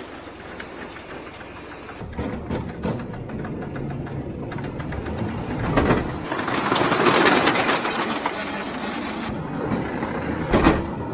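Ladder truck's lift machinery running as the platform carries a load down the ladder, a fast rhythmic mechanical clatter that grows louder about halfway through.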